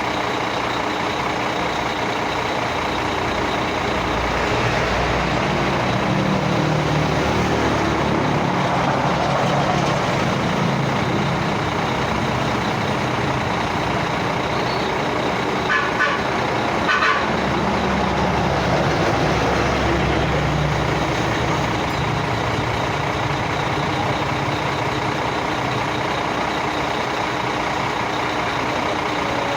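Heavy diesel engine running steadily, growing louder and deeper for a long stretch in the middle before easing back. Two short knocks about a second apart come near the middle.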